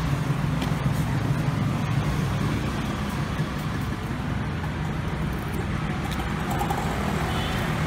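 Steady street traffic noise with a constant low engine hum, and a few faint ticks over it.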